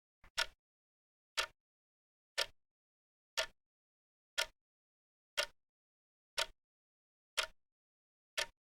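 Clock ticking steadily once a second, each tick a short sharp click.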